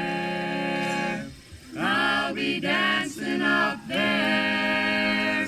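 Voices singing a spiritual unaccompanied, in long held notes with a short break between phrases.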